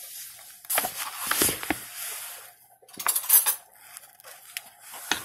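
Metal spoon mixing dry flour and salt in a bowl, scraping and clinking against the bowl in two spells, about a second in and about three seconds in.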